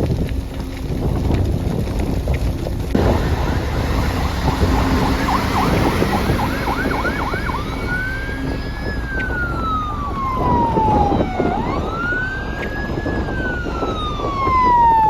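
Emergency vehicle siren: a few quick rising yelps, then a slow wail that rises and falls in long cycles of about four seconds, over a steady rumble of wind and traffic noise.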